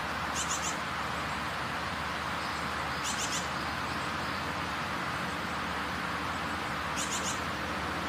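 Mountain outdoor ambience: a steady background of noise with a bird giving three brief high chirping trills, about half a second in, a little past three seconds and about seven seconds in.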